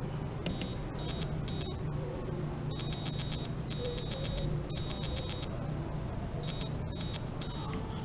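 Grove Beginner Kit buzzer sounding SOS in Morse code as high-pitched beeps: three short, three long, three short, at a slowed-down speed setting.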